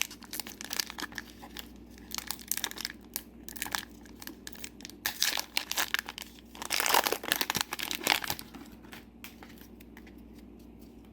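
A trading-card booster pack wrapper crinkling and tearing as it is opened, in uneven bursts of crackle, loudest about seven seconds in, then dying down to faint handling near the end.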